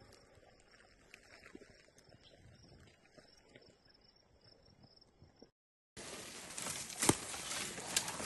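Faint outdoor ambience with a thin, steady, high insect buzz and a few small ticks. After a brief dropout to silence, louder rustling and clicking comes in, with two sharp knocks near the end.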